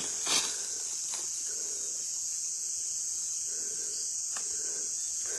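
Steady high-pitched buzzing chorus of night insects such as crickets, with a few faint clicks or knocks.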